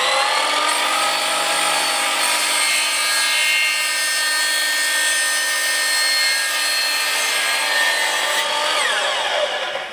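DeWalt compound miter saw cutting a 3-inch PVC 90-degree elbow in half: the motor whine finishes rising to full speed at the start, holds a steady high whine as the blade goes through the plastic, then falls in pitch as the motor winds down near the end.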